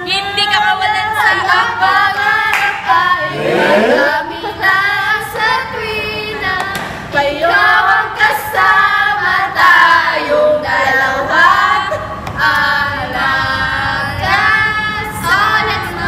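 Several young women singing together without accompaniment, with some hand claps among the singing.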